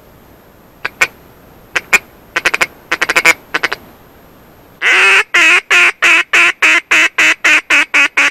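Duck call (manok) blown close by: a few short single and doubled quacks, then, just under five seconds in, one long quack followed by a quick, evenly spaced run of about a dozen loud quacks, a hen-duck hail call aimed at ducks passing overhead.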